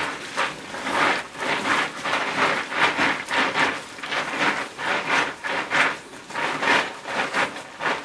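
River snails being washed by hand in a basin of water: repeated splashing and scrubbing strokes, about two a second.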